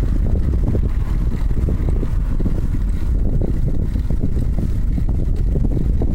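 Wind buffeting the microphone of a moving bicycle rider: a loud, steady low rumble with constant flutter.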